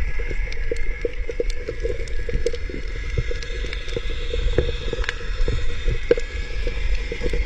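Underwater recording of an unidentified strange sound in the sea: a constant low rumble with many irregular clicks and crackles over a steady faint high hum.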